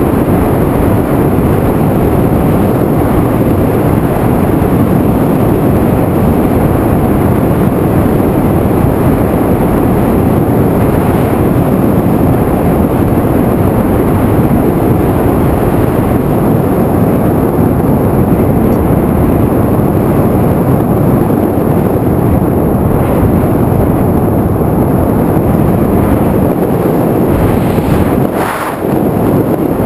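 FPV drone in flight, its propeller noise and wind rushing over the onboard camera's microphone as a loud, steady rush. It dips briefly near the end and comes back.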